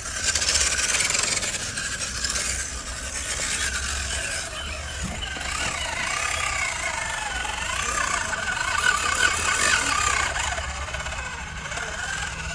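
Electric motor and gears of a 1/10-scale RC rock crawler whining as it crawls, the pitch rising and falling with the throttle.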